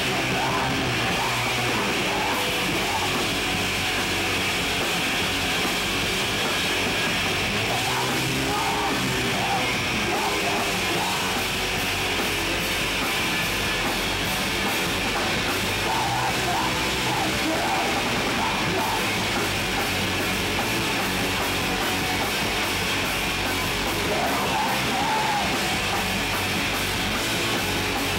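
Hardcore punk band playing live: loud distorted guitar and drums going nonstop, with a singer's yelled vocals coming in stretches over them.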